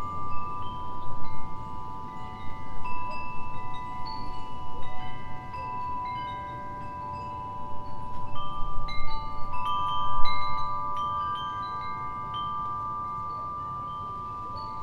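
Wind chimes ringing in the wind: the tubes are struck in irregular clusters, each note ringing on for seconds, and the strikes thin out over the last few seconds, leaving only the lower tones sounding. A low wind rumble runs underneath.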